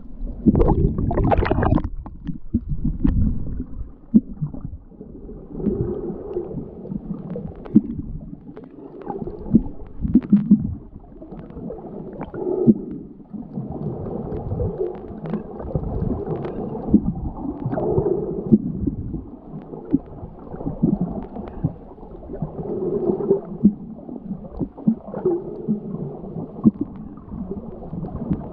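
Muffled underwater sound from a submerged camera while snorkeling: gurgling and sloshing water that swells and fades every two to three seconds. About a second in there is a brief splash as the camera passes through the surface.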